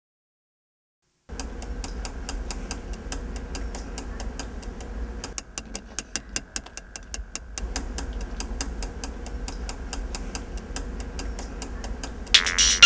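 A retractable pen clicked over and over in a fast, regular rhythm, over a low steady room hum that cuts in about a second in. Just before the end a phone ringtone starts, much louder than the clicking.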